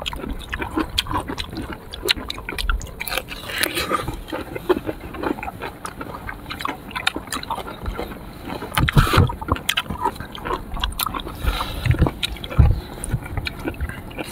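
Close, wet chewing and lip-smacking of juicy sour fruit, a dense run of small irregular clicks and squelches with a few heavier bites.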